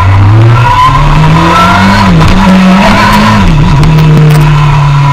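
Suzuki sport motorcycle engine running hard at speed, heard close from the handlebars: the revs climb, drop sharply and briefly twice, about two and three and a half seconds in, then hold steady.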